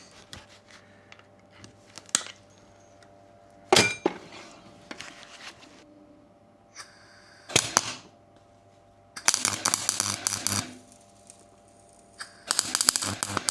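Welder tack-welding steel body panel pieces: two short bursts of dense crackling, about a second and a half each, the first about nine seconds in and the second near the end. A few single sharp clicks and knocks come before them.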